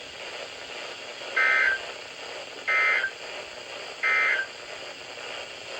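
NOAA Weather Radio EAS End of Message signal: three short, buzzy bursts of SAME digital data tones about a second apart, over steady radio hiss. The bursts mark the end of the broadcast test message.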